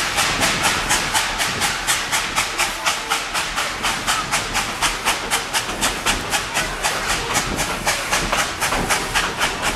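Narrow-gauge steam locomotive working along the track, its exhaust chuffing in an even rhythm of about four to five hissing beats a second.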